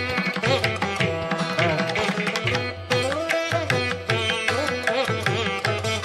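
Instrumental background music: plucked string notes that bend in pitch, over a steady low drone and drum strokes.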